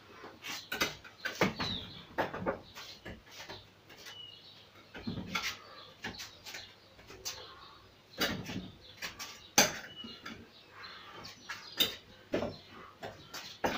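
Forearms and hands striking the wooden arms and trunk of a Wing Chun wooden dummy: an irregular series of sharp wooden clacks and dull thuds, several a second in quick clusters with short pauses between.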